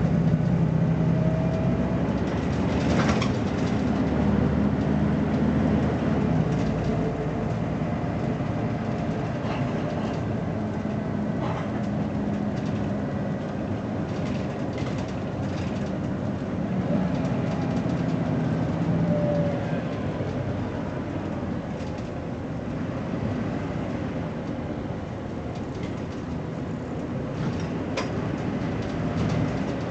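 BMC Belde 220-SLF city bus running under way, its diesel engine note swelling and easing as it pulls. A few sharp knocks or rattles from the body sound over it, one near the end.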